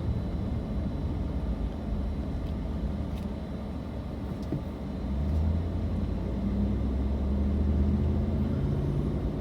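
Car engine and road noise heard from inside the cabin while driving: a low steady rumble that grows louder about five seconds in.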